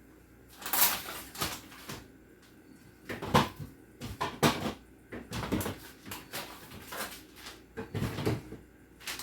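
Food containers being handled and set down on refrigerator shelves: irregular knocks and clatters, the strongest a little under a second in, around three and a half seconds in, and about eight seconds in.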